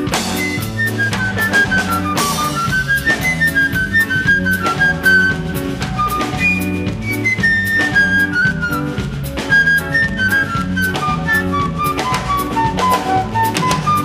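Live band playing a bikutsi tune: a flute plays a running melody of short stepping notes over a steady drum-kit groove and electric bass line.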